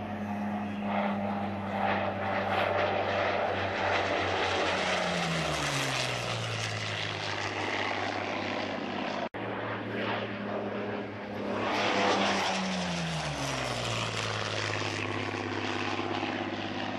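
A Second World War fighter's V12 piston engine making a fast, low flypast. Its note drops in pitch as it passes. The sound cuts off abruptly about nine seconds in, and a second pass follows with the same falling note.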